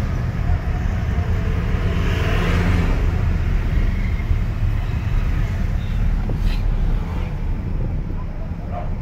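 Steady low engine and road rumble heard inside a car's cabin while driving through traffic.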